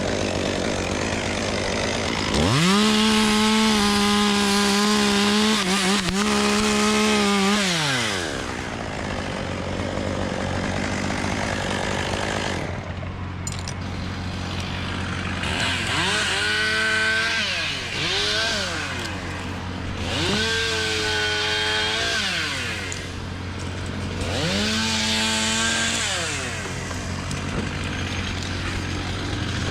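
Two-stroke chainsaw idling, then revved up to full throttle and held for about five seconds before dropping back. It is revved three more times in shorter bursts of a couple of seconds each.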